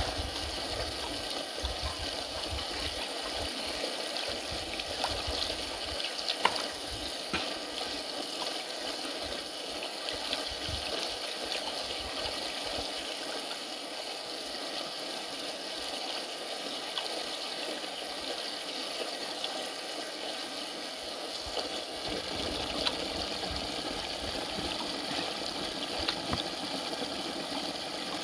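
Running water, a steady rush with a few faint clicks.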